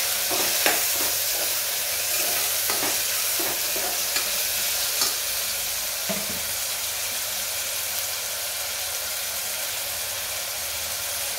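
Chopped onions and tomatoes sizzling in hot oil in an aluminium pressure cooker. A steel spoon scrapes and knocks against the pot over the first half as they are stirred, then the steady sizzle carries on alone.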